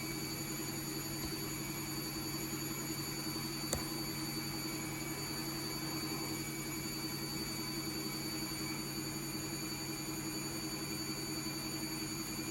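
A washing machine running steadily, with a constant hum and several high whining tones; it is loud enough that the lock picker complains he can't hear himself think. A single sharp click comes about four seconds in.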